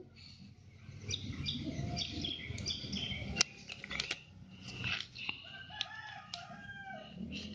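Birds calling in short repeated chirps, among them fowl, with a few sharp clicks, the loudest about halfway through.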